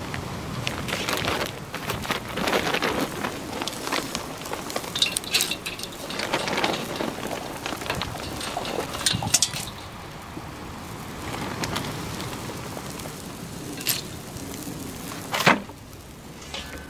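Irregular crackling and clatter, with scattered metallic clinks like utensils being handled, and one sharp knock near the end.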